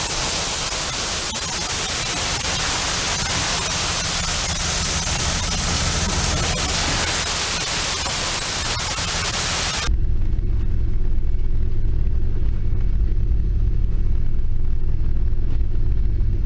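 Loads of crushed ice rushing down a chute into a fishing boat's hold: a loud, steady hiss. About ten seconds in it cuts off sharply, and the boat's engine takes over with a low, steady drone.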